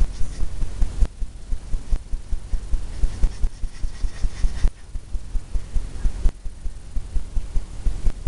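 Fan brush scrubbing blue oil paint onto a stretched canvas, a quick, uneven run of low thumps from the canvas with a scratchy rustle of bristles.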